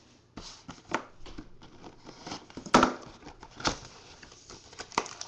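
A 2012 Panini Playbook Football trading card box being torn and pried open by hand: irregular crinkling, tearing and scraping of cardboard and packaging, with scattered clicks and one sharper snap a little under three seconds in.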